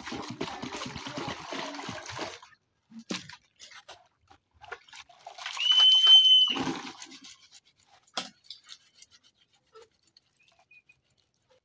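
Water poured from a plastic jerrycan splashing into a plastic basin for the first two and a half seconds, then scattered small splashes and clicks as a plastic container is washed over the basin. About six seconds in comes a loud, high, steady squeak lasting about a second, the loudest sound, and a sharp knock follows near eight seconds.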